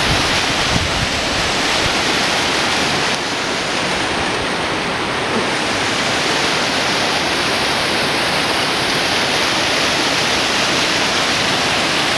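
Waterfall cascading down a rocky gorge: a loud, steady rush of falling water.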